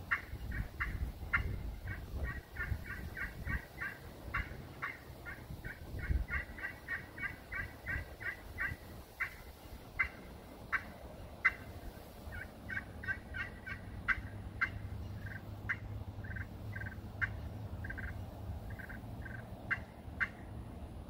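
Zebrawood pot-style friction turkey call with a glass and aluminum playing surface, scratched out in a long series of short, high yelping notes. The notes come in quick runs of about four to five a second in the first half, then as more widely spaced single notes and short strings.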